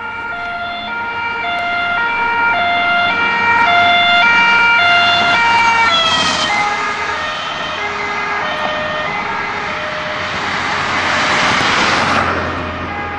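French two-tone emergency siren on a SAMU Volkswagen Sharan response car, alternating steadily between a high and a low tone on an emergency run. About six seconds in, the car passes close by with a rush of noise and the siren's pitch drops. A louder rushing noise swells near the end.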